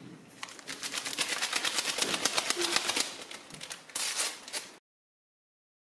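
Paper sachets of baking powder being torn open and emptied over a sieve: a rapid crackling, rustling run of sharp ticks, then a second short burst, cutting off suddenly near the end.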